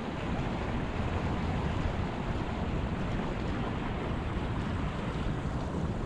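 Steady rush of a river's flowing water, with wind rumbling on the microphone.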